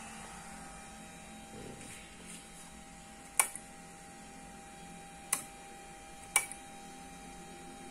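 Three sharp mechanical clicks on the radio bench, the first about three and a half seconds in, then two more about two seconds and one second apart, over a faint steady electrical hum.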